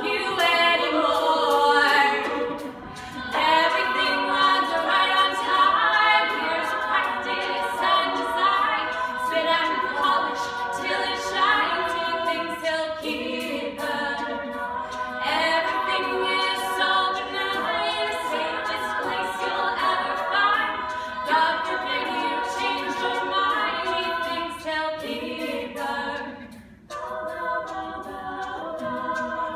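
Mixed a cappella vocal group singing in several parts at once, voices only with no instruments. The singing dips briefly about three seconds in and again near the end.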